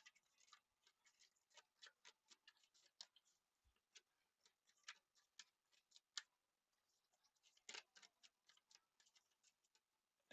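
Near silence with faint, irregular small clicks scattered through it, a few slightly louder ones about five, six and eight seconds in.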